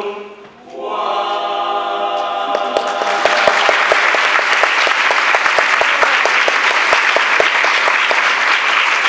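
A male a cappella group holds a sustained closing chord. About three seconds in, audience applause breaks out and takes over, steady and loud.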